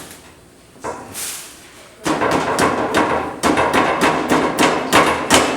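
A quick run of sharp knocks and rattling, about four to five a second, starting about two seconds in after a brief rustle.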